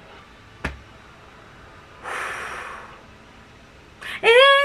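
A woman's audible breath about two seconds in, then near the end a loud, drawn-out whimpering moan that wavers in pitch.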